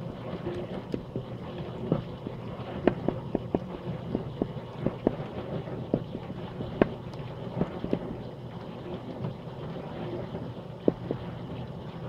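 Compact countertop dishwasher running its wash cycle, heard from inside the wash tub: a steady low hum from the pump under the hiss and slosh of water sprayed from the spray arms, dotted with irregular sharp ticks and knocks.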